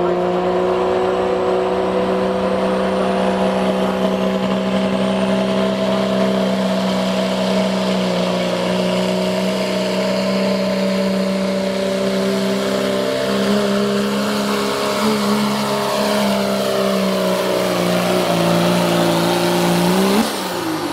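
Ram heavy-duty pickup's turbocharged Cummins straight-six diesel held at high revs under full load while it pulls a weight-transfer sled: a steady engine note that wavers a little in the second half. Near the end the revs climb briefly, then fall away as the throttle comes off at the end of the pull.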